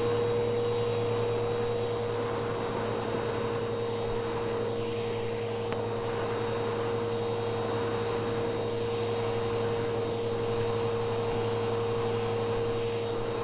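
Vacuum cleaner running steadily as a bristle brush attachment on its hose is worked over carpet. The motor gives an even hum and whine, with no change in pitch.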